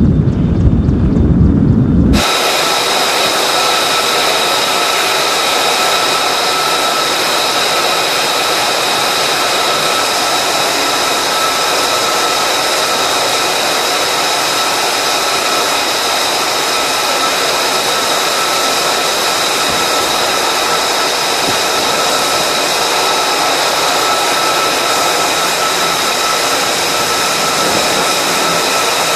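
Wind rumble on the microphone, cut off suddenly about two seconds in by a steady jet turbine engine running close by: a loud even hiss with a high whine of several steady tones.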